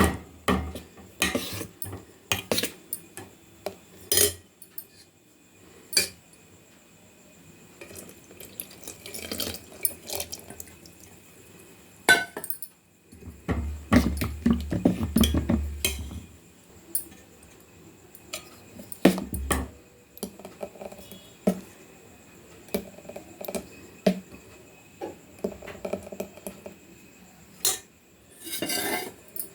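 Kitchen vessels and utensils clinking and knocking against each other in scattered, irregular strikes, with a few duller handling thumps in the middle.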